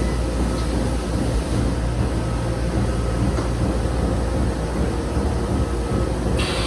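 Industrial machinery running steadily with a low hum. Near the end a higher hiss joins in.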